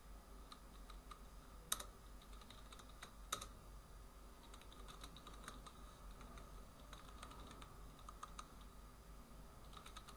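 Faint typing on a computer keyboard: a run of light key clicks, two of them louder about two and three seconds in, over a low steady hum.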